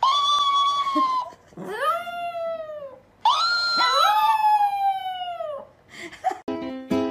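A dog howling in three long calls, each rising and then sliding down in pitch. During the third call a second howling voice briefly overlaps. Plucked-string music starts near the end.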